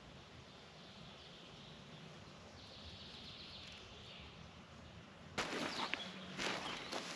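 Faint forest ambience with distant birdsong, then, about two-thirds of the way through, close rustling and crunching with sharp clicks as boots step on the dry needle litter of the forest floor.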